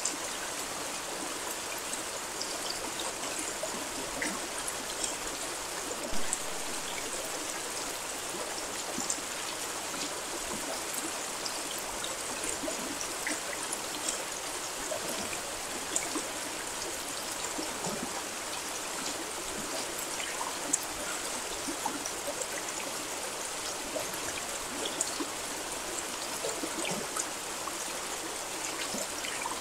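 Steady rain: an even hiss with many individual drops clicking close by, a few louder ones now and then.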